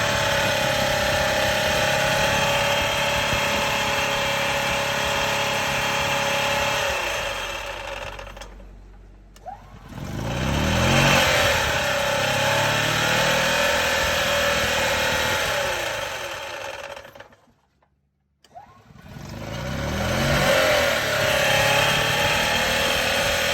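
EZGO TXT gas golf cart's engine and drive clutch running with a grinding noise from the clutch. It winds down and stops twice, about a third of the way in and again about three-quarters through, and each time starts back up and revs.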